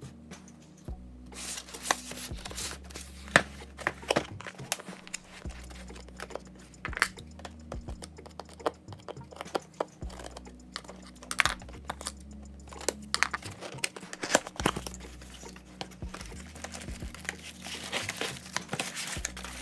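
A cardboard retail box being opened by hand: scissors snipping through the tape and cardboard, with packaging rustling, tearing and crinkling and many irregular clicks and knocks as the flaps are handled.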